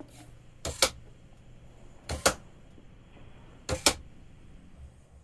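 Bench coilgun test-fired three times, each shot a sharp double click, about a second and a half apart.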